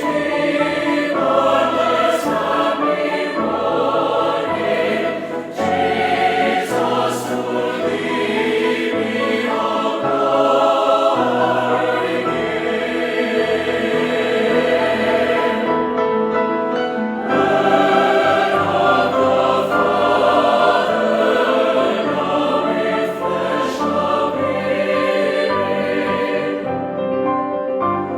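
A choir singing a hymn in sustained, slowly changing chords.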